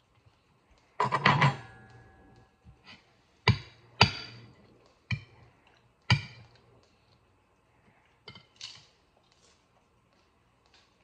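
A metal fork knocking against a plate: a quick cluster of clinks about a second in, then single knocks every second or so, some ringing briefly.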